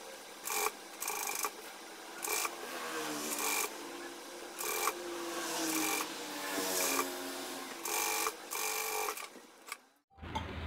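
Industrial flatbed sewing machine stitching in a series of short runs, each under a second, as the neck facing of a churidar top is folded inward and topstitched. A lower motor hum carries on between runs. The stitching stops shortly before the end.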